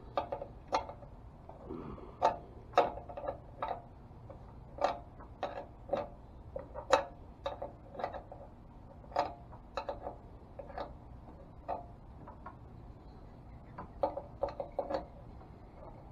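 Steel 10 mm open-end wrench clinking on a nut and its metal bracket as it is lifted off and set back on, a fraction of a turn at a time, while the nut is slowly tightened: irregular sharp metallic clicks, about one or two a second, some in quick pairs.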